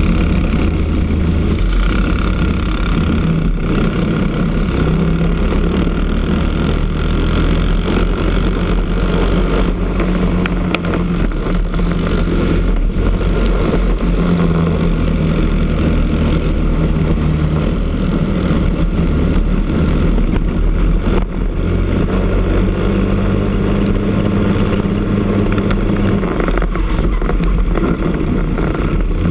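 Briggs & Stratton LO206 four-stroke single-cylinder kart engines at racing speed in a pack, heard onboard one kart. The engine note rises and falls in pitch as the kart speeds up and slows.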